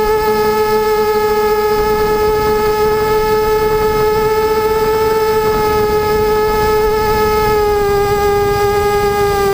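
Quadcopter's brushless motors and propellers whining at a steady pitch, dipping slightly lower near the end.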